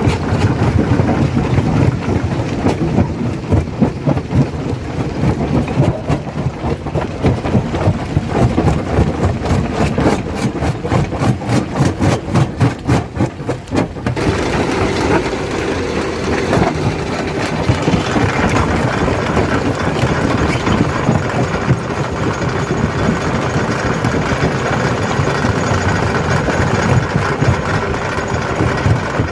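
Stone crusher running under load with its engine, rock cracking and grinding in the crusher. Through the middle a fast, even knocking runs for several seconds and stops suddenly about halfway, after which the machine runs on more steadily.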